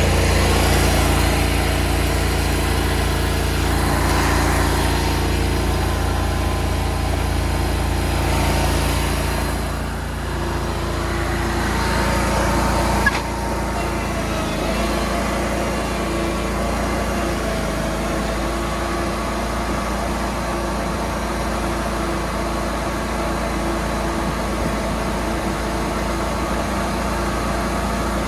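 SCAG V-Ride II stand-on mower's engine running steadily as the machine plows snow. A sharp click comes about thirteen seconds in, after which the engine runs a little quieter.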